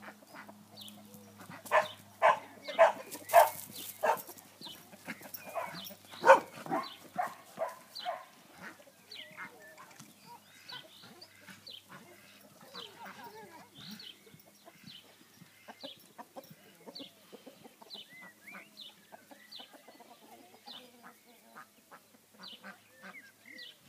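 Birds calling in a long run of short repeated calls, loud and close together for the first several seconds, then softer and more scattered.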